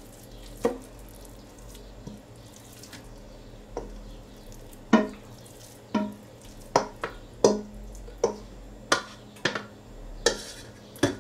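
Wooden spoon knocking and scraping inside a stainless steel mixing bowl as wet ground-chicken meatloaf mixture is scooped out, each stroke a short clank with a brief metallic ring. About a dozen strokes at an uneven pace, coming faster from about halfway through.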